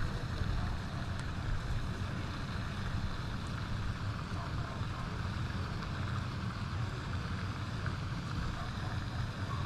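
Wind buffeting the microphone: a steady, fluttering low rumble with a softer rushing hiss above it.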